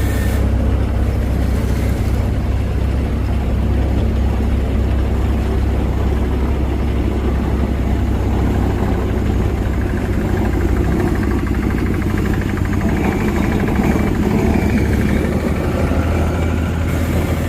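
Road roller's diesel engine running steadily with a low drone while compacting hot-mix asphalt.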